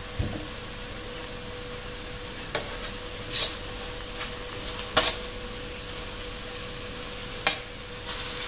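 Chicken cooking in a hammered carbon-steel wok: a low steady sizzle with a faint steady hum beneath it, broken by four short clicks and knocks, the sharpest about five seconds in.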